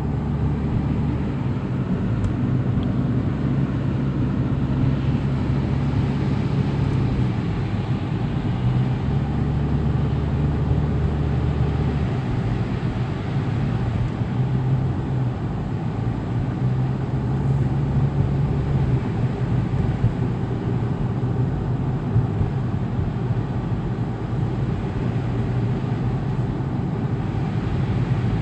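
A car driving along a snowy street, heard from inside the cabin: a steady low drone of engine and tyre noise.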